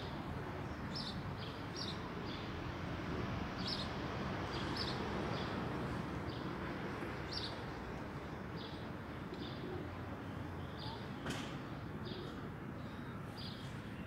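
Small birds chirping in short high calls, repeated irregularly throughout, over a steady hum of street traffic, with a single click about eleven seconds in.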